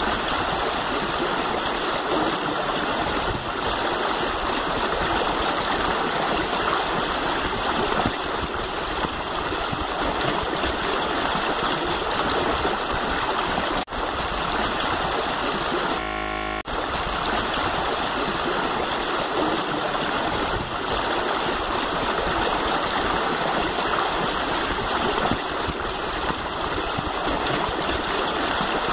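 Shallow river flowing over rocks, a steady rushing of water. It drops out briefly about 14 seconds in and is garbled for about half a second a couple of seconds later.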